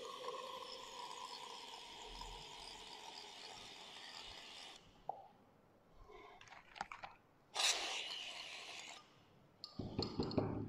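Aerosol can of Ken whipping cream spraying into a large glass: a steady hiss with a faint whistle that slowly drops in pitch for the first few seconds, then after a short pause a few shorter spurts, the strongest about eight seconds in. Uneven low sputtering near the end.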